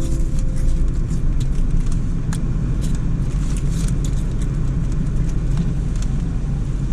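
Car on the move: a steady low engine and road rumble with scattered light clicks and rattles.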